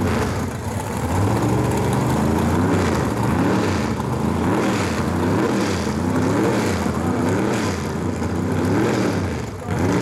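Drag-racing car engines revving hard, their pitch climbing and dropping back again and again, with a short dip near the end.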